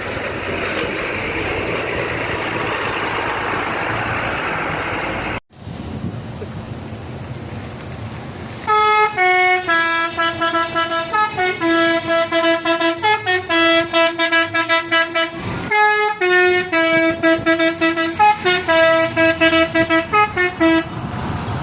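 Steady traffic and engine noise, then after a sudden dropout a bus's 'telolet' multi-tone horn plays a quick melody of stepped, pulsing notes for about twelve seconds, with a brief break partway through.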